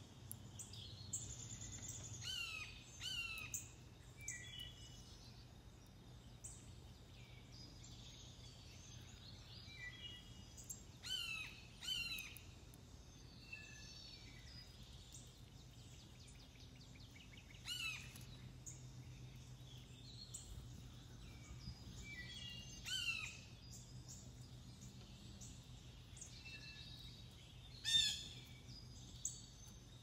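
Wild songbirds singing and calling: scattered short whistles and chirps, several sliding downward in pitch, with one louder call near the end. A faint steady low hum lies underneath.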